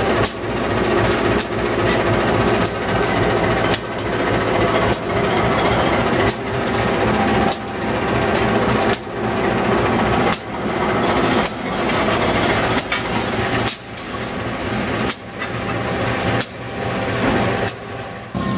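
General Electric diesel-electric locomotive passing slowly at close range, its diesel engine running with a steady drone. Sharp clacks come about every second and a quarter, the wheels striking the rail joints.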